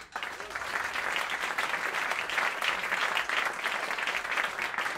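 Audience applause breaking out suddenly: many people clapping at once, a dense, even patter of claps.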